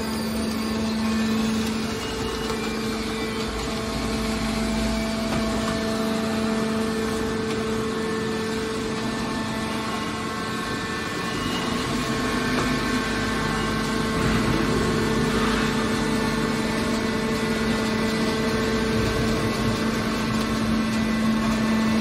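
Hydraulic scrap metal baler's power unit running, a steady machine hum with a constant low tone.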